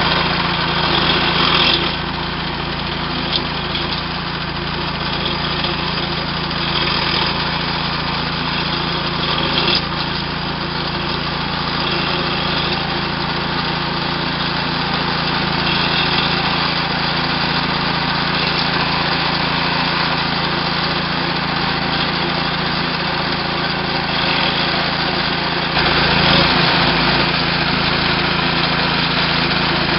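Small gas engine of a walk-behind wire-burying trencher running steadily under load as its blade cuts a narrow trench through lawn turf and soil. It gets louder near the end.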